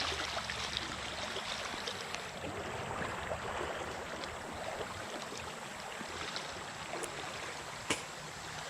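Shallow creek water running and trickling over rocks, a steady rushing with small ticks, and one sharp click near the end.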